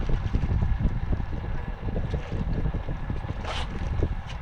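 Wind buffeting the microphone, with a hooked hybrid striped bass splashing at the surface as it is brought to the landing net; one brief, sharper splash about three and a half seconds in.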